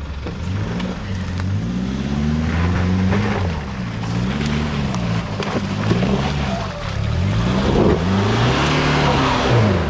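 Four-wheel-drive engine revving up and down several times under load as the vehicle works over a rough off-road track, with scattered knocks and clatter.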